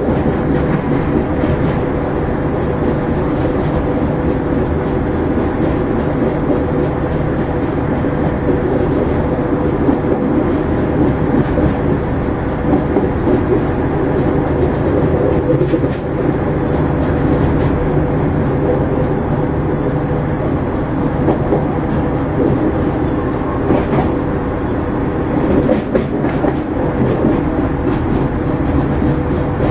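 Irish Rail 2600 class diesel multiple unit running along the line, heard from inside the coach through an open window: a steady drone and hum of engine and wheels on rail, with a few sharp clicks over rail joints.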